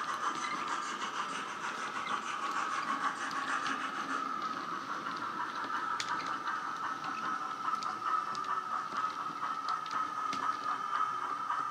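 Sound-fitted OO gauge Bachmann LNER V2 model: a LokSound 5 decoder with Wheeltappers steam sound plays a running steam locomotive's exhaust and hiss through the model's small built-in speaker as it moves slowly along the track. The sound is steady, with a constant high tone throughout.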